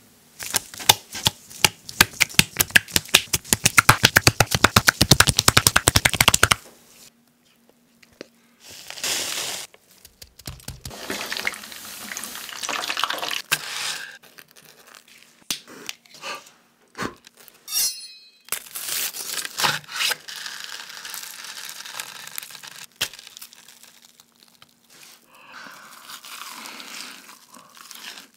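Close-miked food-preparation and eating sounds from a breaded, deep-fried ham and cheese cutlet: handling, rustling, knocks on a wooden board and crisp crunching of the fried crust. It opens with a fast run of ticks for about six seconds that cuts off suddenly, and it ends with crunchy bites into the cutlet.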